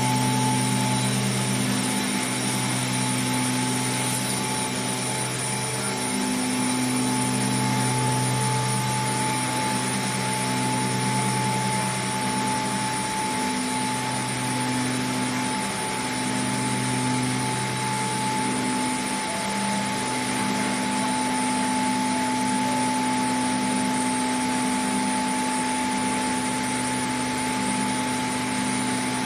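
Machinery of a vacuum-process (V-process) casting line running: a steady hiss with a constant high whine, over a low droning hum that swells and eases every few seconds.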